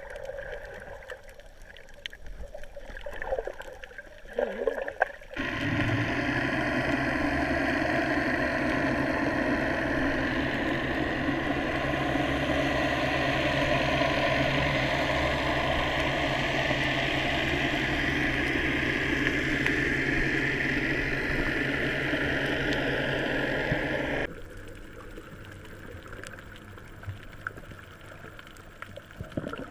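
A boat's engine running steadily, heard underwater as a constant droning hum. It starts abruptly about five seconds in and cuts off just as abruptly about five seconds before the end. Around it are quieter sloshing and bubbling water sounds.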